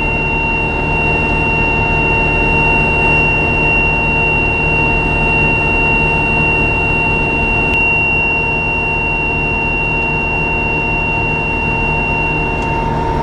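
Tractor and John Deere 535 round baler running steadily at work, a constant engine and driveline drone with a steady high whine over it, while the baler's twine arm ties off a bale.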